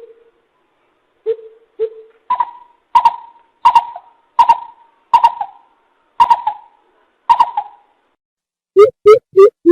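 Greater coucal (bìm bịp) calling: a few deep hoots, then a series of higher, hoarser notes about one every 0.7 seconds, then a quick run of deep booming hoots near the end.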